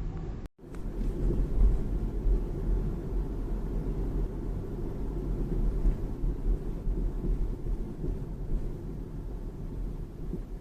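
Steady low road-and-drivetrain rumble from a moving BMW 3 Series (G20), after a brief dropout near the start. Under it lies the abnormal underbody noise that the owner traces to a faulty steering gearbox.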